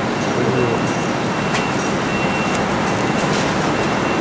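Steady outdoor din of downtown city traffic heard from high up, with a faint high-pitched whine that comes and goes.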